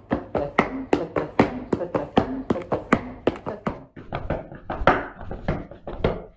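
Leather boots stamping and tapping on a hard floor in folk-dance footwork, a quick even beat of about five strikes a second. The beat breaks off briefly about four seconds in and then picks up again.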